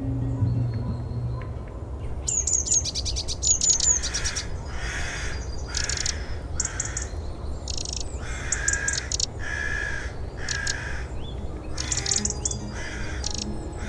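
Willow tit calling: a quick run of thin, high notes, then a series of harsh, repeated calls, the species' 'tchay' notes, over a steady low rumble.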